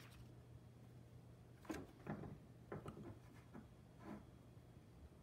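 A handful of faint taps and scrapes from about two seconds in, as hands handle a phone on a wooden desk and rub down a tempered glass screen protector to push out an air bubble, over a low steady hum.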